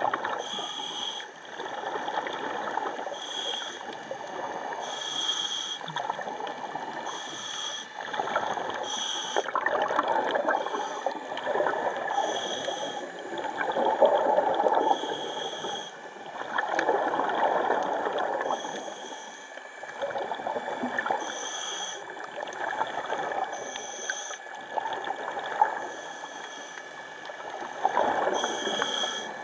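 Scuba diver breathing through a regulator underwater, with surges of exhaled bubbles every few seconds. Short high-pitched tones repeat irregularly over them.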